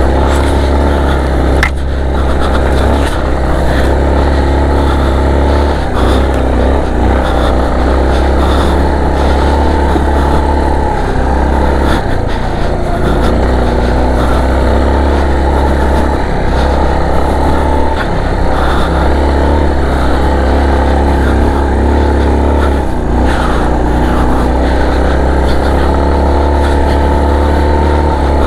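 A motor vehicle's engine runs steadily while driving, its note drifting slightly up and down, over a steady deep rumble.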